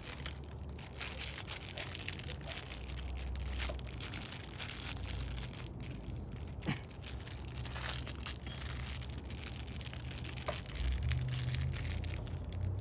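Small plastic hardware bag crinkling and rustling as hands work at it, with scattered crackles.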